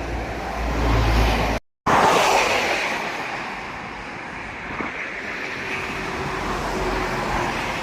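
Road traffic on a highway heard from a moving bicycle. A vehicle passes loudly about two seconds in and fades away, and the sound drops out for a moment just before it.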